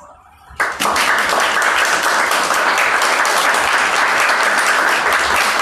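Audience applauding, breaking out suddenly about half a second in and holding steady.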